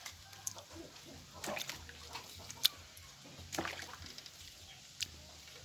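A few short calls from farm animals, faint and spaced apart, with a sharp click about two and a half seconds in.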